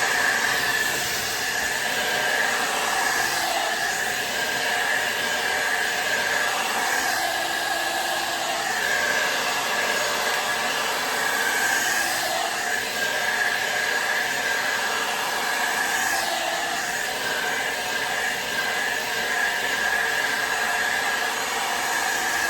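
ANIEKIN 1875-watt hand-held hair dryer running steadily with its nozzle fitted, blowing air onto hair: a loud, even rush of air with a steady high whine.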